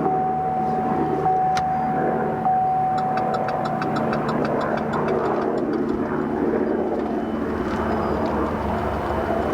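Chevrolet Traverse running, with its turn-signal indicator ticking in a quick, even run of about five ticks a second for a couple of seconds, about three seconds in.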